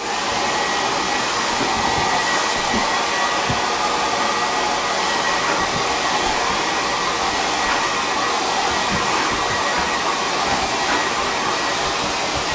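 Hair dryer running steadily, an even rushing blow with a faint high whine held at one pitch.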